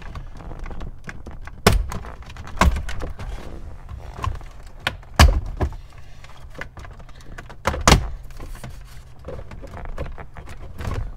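Retaining clips of a 2012 Ford F-250 Super Duty's dash trim bezel snapping loose as the panel is pried off by hand: a series of sharp clicks and pops, about six, the loudest about five and eight seconds in, with the trim rubbing and rattling between them.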